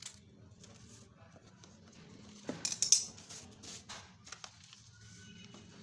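A sheet of paper being handled and folded, with scattered crackles and a dense burst of sharp creasing crackles about two and a half to three seconds in.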